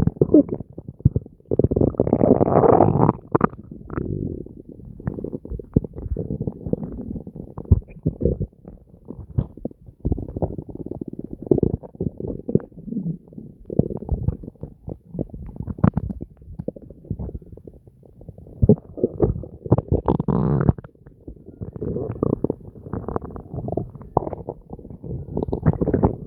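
Human stomach gurgling and rumbling during digestion, recorded close up and distorted. It is a continuous run of irregular crackling gurgles, with louder swells about two seconds in and again near twenty seconds in.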